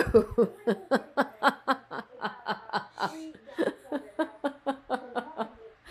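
A woman laughing: a long unbroken run of short chuckles, about four or five a second.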